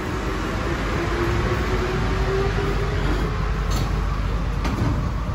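Interior noise of an Alstom NS-16 rubber-tyred metro train setting off: a steady rumble and hiss, with a faint motor whine that rises a little in pitch over the first few seconds and then fades.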